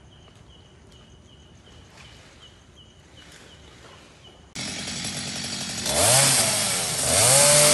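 Petrol chainsaw cutting into a fallen tree. It cuts in abruptly about four and a half seconds in and revs up and down several times. Before it there is only a faint, regular chirp a few times a second.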